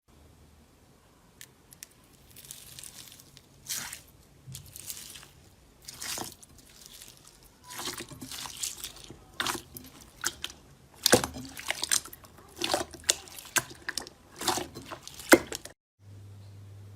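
Slime being squished and worked by hand: irregular wet squishes and crackles, some much louder than others. Near the end it cuts to a steady low hum.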